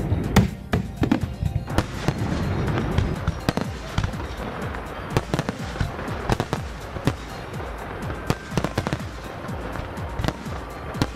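Fireworks going off in many sharp, irregular bangs and crackles, with music playing underneath.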